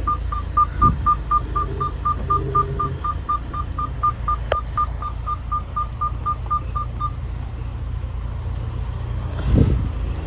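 Rapid electronic warning beeping, about four short identical beeps a second, stopping about seven seconds in, over a semi-truck's diesel engine idling. A sharp click comes midway and a thump near the end.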